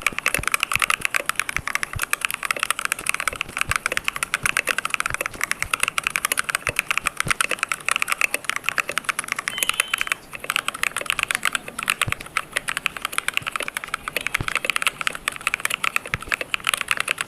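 Fast, continuous typing on a computer keyboard, a very clicky sound of rapid key presses with a brief pause about ten seconds in.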